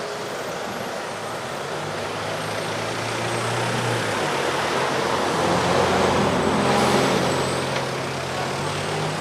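A motor vehicle passing on the road, its engine hum growing louder to a peak about six to seven seconds in, then easing off, over steady traffic noise.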